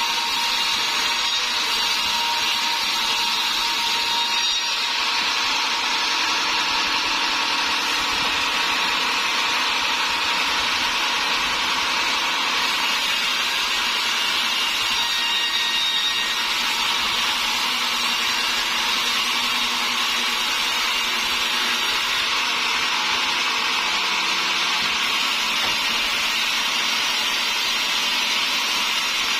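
Sawmill saw running steadily, giving an even, high-pitched noise with no pauses.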